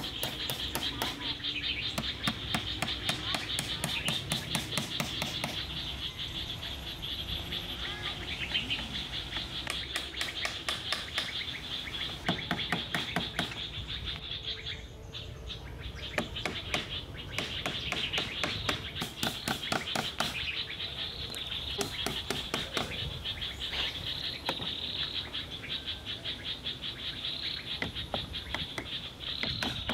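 Repeated knocking and tapping of hand tools on wooden planks and bamboo, in runs of quick strikes, over a steady high insect drone of cicadas or crickets.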